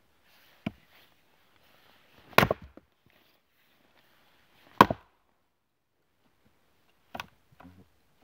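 Axe blows on a log round on a chopping block, splitting the firewood: sharp wooden knocks with quiet between, the two loudest about two and a half seconds apart, then a couple of lighter knocks near the end.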